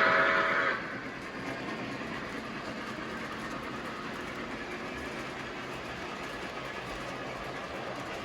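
Model train's horn sounds briefly and cuts off under a second in, then the train runs steadily along the track with an even rolling noise.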